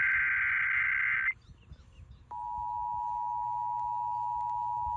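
Emergency Alert System tones over a radio broadcast. The end of a SAME digital header burst, a harsh warbling data screech, stops about a second in. After a short gap the steady two-tone EAS attention signal begins and holds.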